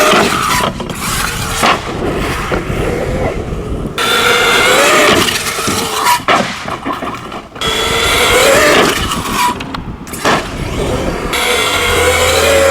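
Traxxas X-Maxx RC monster truck's electric motor and drivetrain whining, the pitch rising and falling as the throttle is worked, with several sharp knocks from landings and hits.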